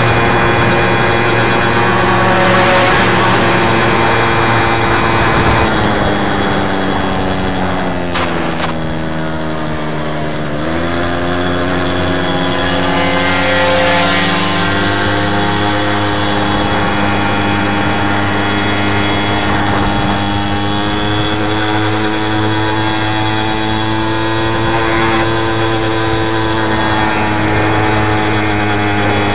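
A VéloSolex moped's small two-stroke engine running at a steady pitch. It slows, the pitch falling from about six seconds in, then picks up again about ten seconds in and holds steady.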